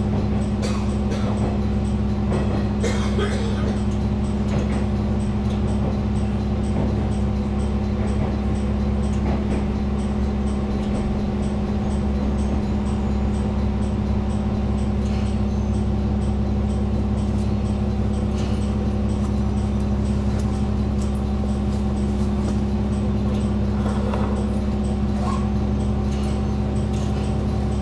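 Steady hum of a diesel railcar's engine heard inside the passenger cabin, with faint clicks and rattles.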